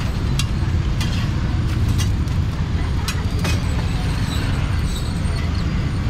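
Busy market street ambience: a steady low rumble, with scattered short clinks and clatter over it.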